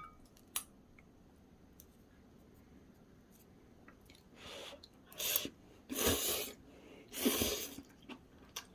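Someone eating ramen noodles, with four short airy slurps starting about four seconds in, after two faint clicks near the start.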